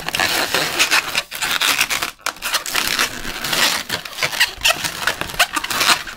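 Inflated latex modelling balloons (260Q) squeaking and rubbing against each other as they are twisted and worked together by hand, a busy, continuous run of short rubbing sounds.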